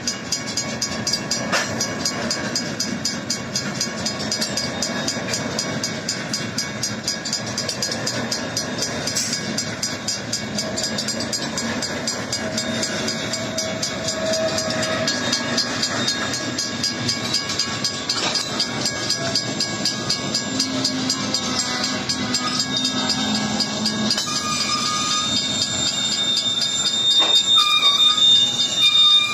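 Two WCH mechanical crossing bells ringing in a fast, even beat over the rumble and clatter of a freight train's covered hopper cars rolling through the crossing. Thin, high wheel squeals join near the end.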